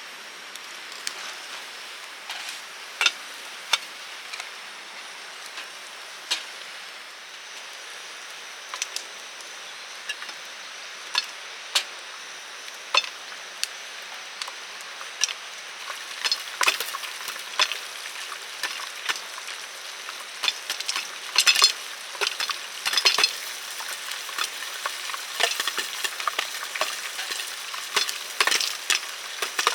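Wood fire crackling in a small fire pit: a steady hiss with sharp pops, a few at first, then coming thicker in the second half as the fire takes hold.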